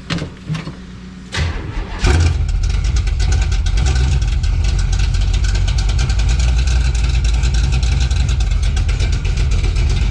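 A Jeep CJ's carbureted engine catches and fires up about two seconds in, then keeps running loudly and steadily with a fast even pulse. This is a cold start with no choke after the Jeep has sat unused since November.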